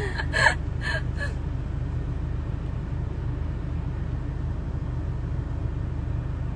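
Steady low rumble of a vehicle cabin, heard from inside the van, with a short breathy gasp-like laugh in the first second.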